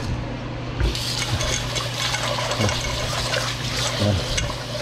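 Kitchen tap running into a black nonstick rice pot while hands scrub it clean; the water comes on about a second in, after a few light knocks of the pot.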